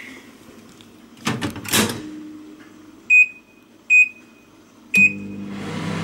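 Microwave oven being worked: a couple of clunks from the door, then three short keypad beeps about a second apart. After the third beep the microwave starts running with a steady hum and fan noise, heating a bowl of white chocolate to melt it.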